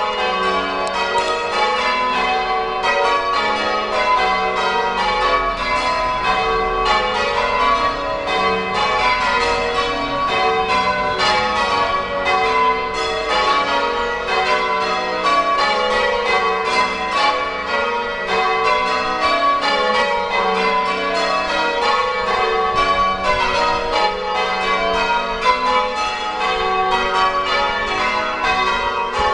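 Church tower bells being change rung: the bells strike one after another in a rapid, unbroken sequence, each note ringing on into the next.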